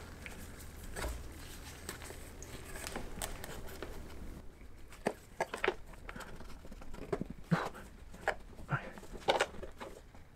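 Hands working a rubber intake boot and pipe into a dirt bike's plastic airbox: scattered light clicks, taps and rubbing, coming more often in the second half.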